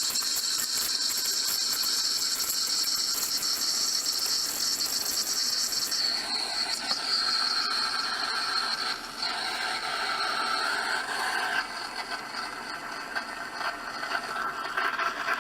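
Protea Romanza espresso machine's steam wand hissing as it steams and froths heavy whipping cream. The hiss changes in tone about six seconds in, and a wavering whistle-like tone comes and goes near the middle.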